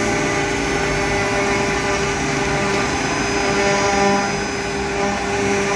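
Single-head CNC router running steadily: a constant machine whine of several held tones over a hiss.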